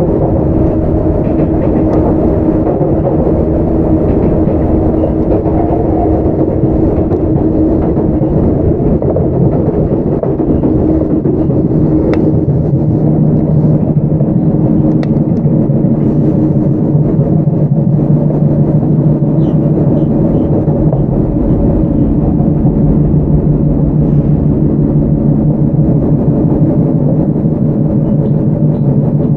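Onboard running sound of a Sotetsu 9000 series electric train, whose Hitachi IGBT VVVF inverter and right-angle cardan drive give a steady drone of several held tones over the rumble of wheels on rail. A lower tone comes in about twelve seconds in.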